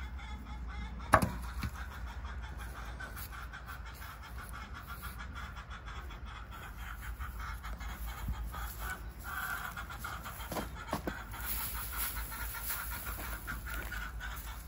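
Chickens clucking steadily in the background, with a single sharp knock about a second in and light scattered clicks and steps over grass.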